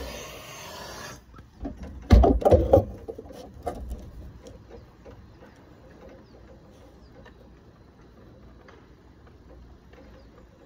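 Gas torch hissing, shut off about a second in. Then a quick run of loud knocks and clatters, and faint scattered ticks and scrapes of hand tools working the lead.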